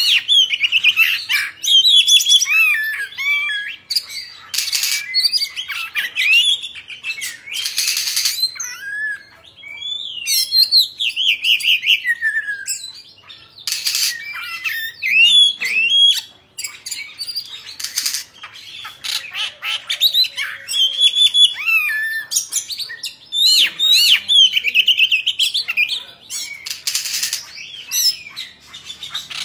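Oriental magpie-robin singing: loud, varied whistled phrases full of quick rising and falling notes, broken by short pauses and by harsh, scratchy notes.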